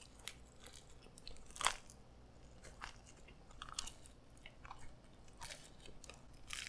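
Close-up biting and chewing of a dry pizza crust topped with beef, no sauce or cheese: scattered short crisp crunches between quieter chewing, the clearest about one and a half seconds in.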